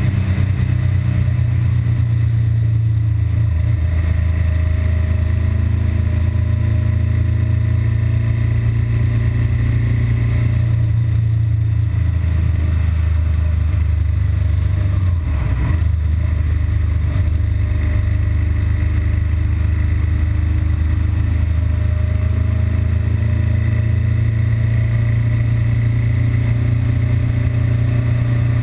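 BMW R1200GS Adventure flat-twin boxer engine running while the bike is ridden, its steady drone shifting a little in pitch with the throttle about midway. The engine is still running normally here, before its intermittent stalling and rough-idle fault sets in.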